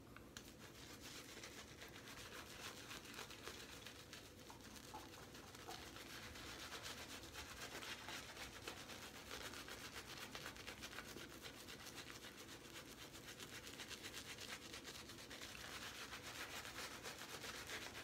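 Omega Professional boar-bristle shaving brush scrubbing lather over a stubbled face in quick strokes, a soft, steady bristly scratching that grows louder near the end. The lather is on the dry side.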